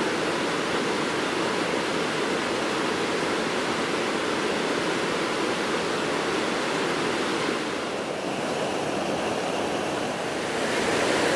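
A swollen, muddy mountain river in spate rushing hard over rocks and the concrete intake weir: a steady, dense rush of water, dipping slightly about two-thirds of the way in and swelling again near the end.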